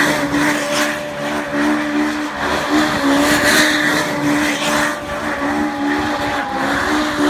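A car spinning donuts with its engine held at steady high revs, dipping briefly now and then, while the spinning tyres squeal.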